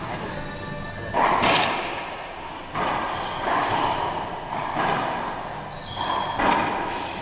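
Racquetball rally in an enclosed court: the ball cracking off racquets and walls about five times, each hit sharp and echoing.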